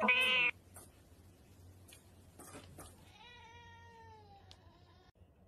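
Two cries from a small pet. A short, loud, high cry comes right at the start and cuts off abruptly, and a longer, quieter call slowly falls in pitch from about three seconds in.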